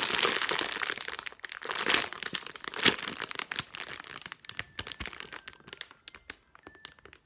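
Clear plastic packaging bag crinkling as a squishy toy is pressed and handled through it: a dense crinkle for the first few seconds, then sparser, quieter crackles.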